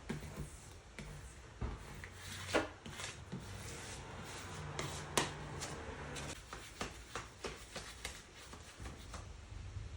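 Light scraping and scattered small clicks of an X-Acto knife blade running along the glass edge as it trims vinyl decal film, with a low steady hum underneath.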